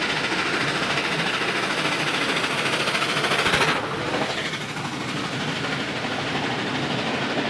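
A 59 class steam locomotive, No. 5917, passes close by with a fast, steady beat. The sound is loudest just before four seconds in, then falls away sharply as the engine goes beneath. After that the carriages roll past on the rails.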